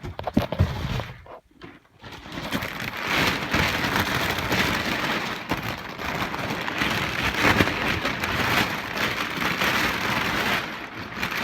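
Plastic packaging and bubble wrap crinkling and rustling as it is pulled and unwrapped by hand, a dense crackle that pauses briefly about a second in.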